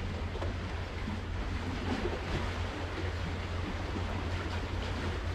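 Steady wind noise rumbling on the microphone over the steady wash of river water.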